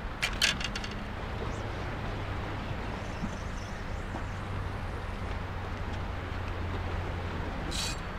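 Steady outdoor background noise with a low engine-like hum. A few sharp clicks come in the first second, as fishing gear is handled at the bag, and a short hiss comes near the end.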